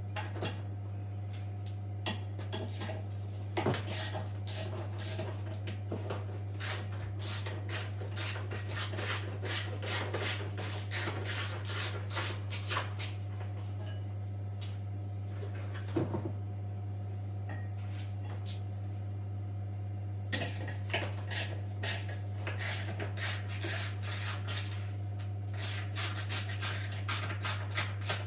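Hand tools and metal parts clinking, ticking and scraping as a washing machine is taken apart, in quick runs of small clicks that pause for several seconds midway. A steady low hum sits underneath.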